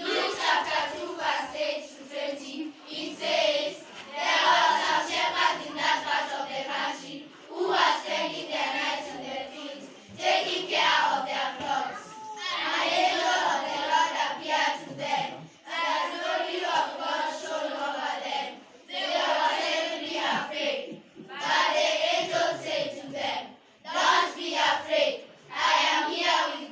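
A group of children's voices in unison, delivered in short phrases with brief pauses between them.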